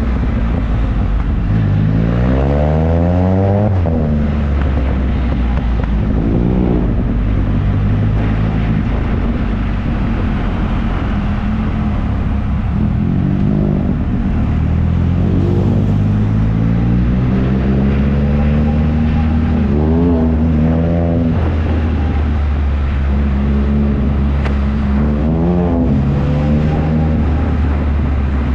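Can-Am Spyder F3's three-cylinder engine running on the road, its pitch climbing and dropping back several times as it accelerates and shifts, over a steady low drone.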